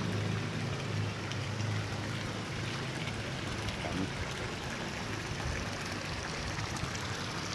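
Steady rush of water pouring from white plastic pipes into a fish pond.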